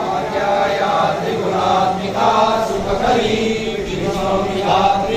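Several voices chanting a Hindu devotional hymn together, in sung phrases with brief breaks between them.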